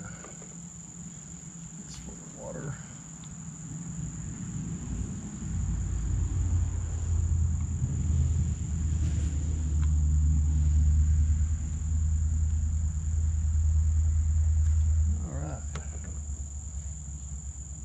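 Insects singing in a steady high-pitched drone, with a low rumble rising about a third of the way in and dropping away near the end, the loudest sound present. A few faint clicks come from the plastic water-fill hatch being handled.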